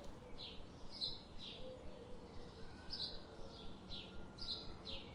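A bird calling: a series of short, high notes, each falling in pitch, repeated every half second or so over a faint background hiss.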